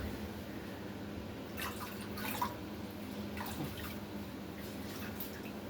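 Drywall knife spreading wet joint compound over a joint: a few short, soft, wet scraping strokes over a faint steady hum.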